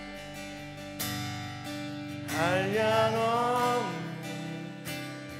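Live worship band music, with a five-string Alleva Coppolo LG5 electric bass playing under the band. About two seconds in, a singer comes in with a sung phrase lasting about a second and a half.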